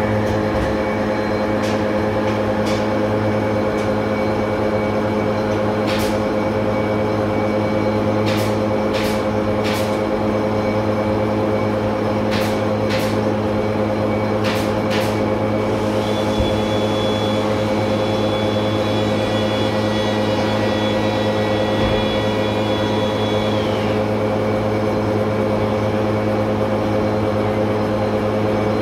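Workshop machinery running with a steady hum, with the multi-bag dust extractor running. Several sharp ticks or knocks come through the middle stretch, and a faint high whine sounds for several seconds later on.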